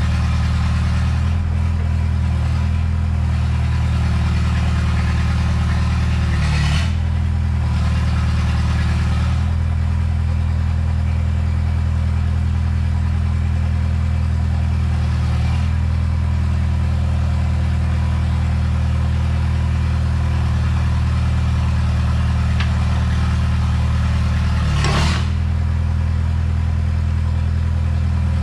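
Komatsu PC60-5 excavator's freshly rebuilt diesel engine running steadily. Two short sharp knocks sound over it, one about a quarter of the way in and one near the end.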